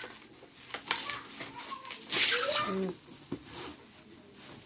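Plastic bubble wrap rustling and crinkling in a few short scrapes as it is pulled off a cardboard box, with a brief vocal sound a little past the middle.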